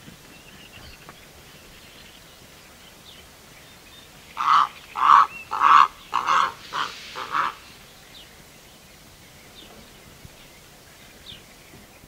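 Purple heron giving a run of about six harsh calls, starting about four seconds in, the last ones quieter. A nightingale sings faintly in the distance over a slightly hissy background.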